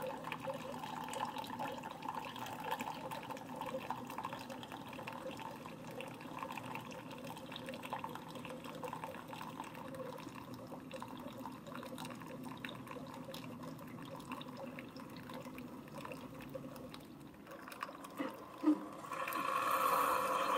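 Two Keurig K-Supreme single-serve coffee makers brewing at once, their pumps running steadily as coffee streams into glass mugs. Near the end there is a click, and then the sound grows louder.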